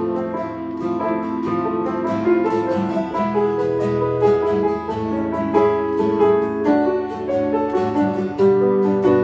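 Acoustic guitar and grand piano playing an instrumental jam together on a chord progression, with many plucked and struck notes.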